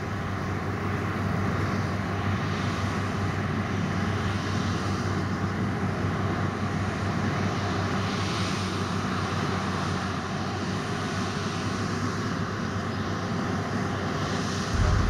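Heavy farm machinery running steadily, giving an even, constant rushing noise.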